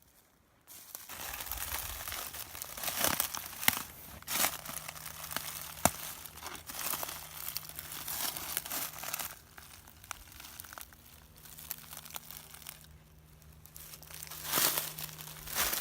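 Footsteps crunching through fallen leaves, starting about a second in as an irregular run of crunches, easing off for a few seconds in the middle and getting louder again near the end.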